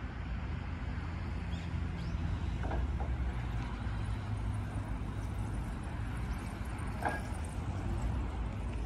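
Steady low outdoor rumble, with a few faint brief sounds about three seconds and seven seconds in.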